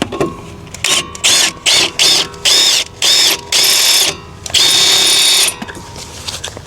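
A power tool with a star-point (Torx) socket spins in a quick series of about seven short trigger pulls, then one longer run of about a second. The motor whines up and down in pitch with each pull, working a wheel hub assembly bolt loose.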